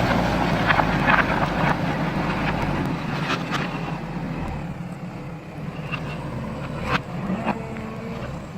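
JCB backhoe's diesel engine running, growing quieter over the first half, with a few sharp knocks or clanks scattered through it.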